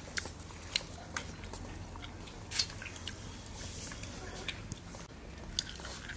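A man chewing and smacking his lips while eating rice mixed with curry by hand, with irregular sharp wet mouth clicks.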